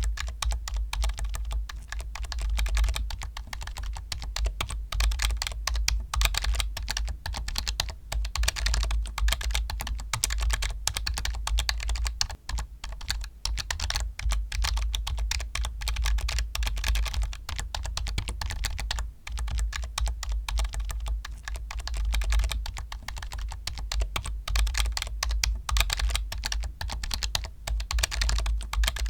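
Steady, fast typing on a computer keyboard: a dense run of key clicks, pausing only briefly a few times.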